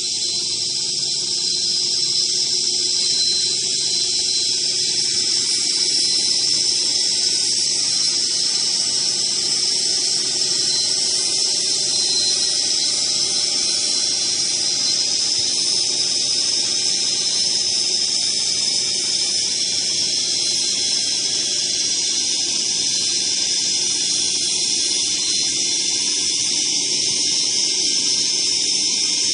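A machine with a saw blade and four spindles running and cutting without a break, giving a steady, high-pitched hiss.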